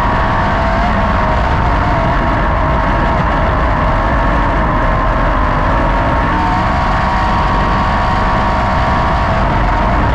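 410 sprint car's V8 engine heard onboard from a roll-cage-mounted camera, running hard at a near-steady high pitch, with wind buffeting the microphone.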